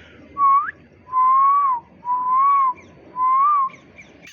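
Whistling: four clear whistled notes. The first is a short upward sweep; the next three are longer, held near one pitch, each with a slight bend at the end.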